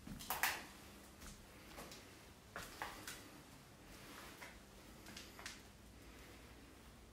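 Faint footsteps on a hard floor, a short click or knock with each step, the loudest about half a second in.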